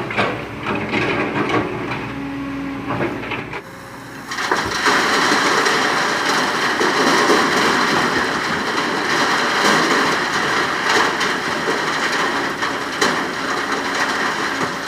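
Excavator loading sand and rock into a truck: scattered knocks and clatter over a running engine, then from about four seconds in a loud, steady rush and grinding of material.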